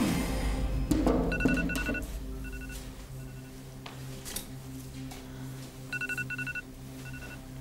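Mobile phone keypad beeping as a number is dialed: short single-pitched beeps in two quick runs of about five presses each, with a pause between them.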